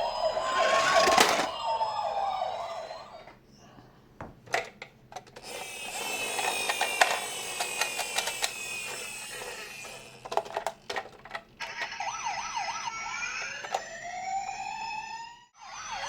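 Toy ambulance minicar's electronic siren wailing, its pitch sliding up and down, with sharp clicks and knocks scattered through. The siren drops out for a couple of seconds early on, comes back, and cuts off suddenly just before the end.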